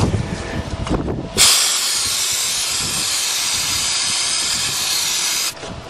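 Aerosol can of MotoMaster Quick Start starting fluid sprayed in one steady hiss of about four seconds, starting about a second and a half in and cutting off abruptly. It is being sprayed into the throttle body to prime an engine that would not start on cranking.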